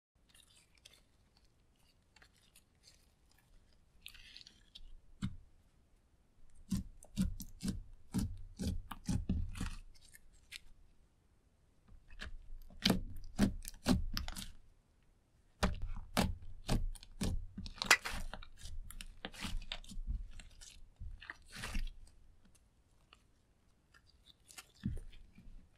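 Sticky slime, clear slime with eyeshadow powder mixed in, being stretched, folded and squeezed by hand, giving clusters of wet crackling clicks and pops. It is faint for the first few seconds, then comes in bursts a second or three long with short pauses between.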